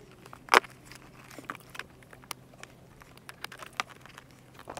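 Small metallic clicks and clinks of an adjustable wrench and hands working the terminal nuts on an ATV starter relay, with one sharp clink about half a second in and a few more near the end.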